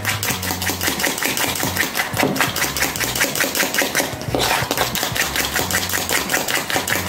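A metal utensil beating an egg mixture in a white bowl, tapping against the bowl in rapid, even clicks, about seven or eight a second.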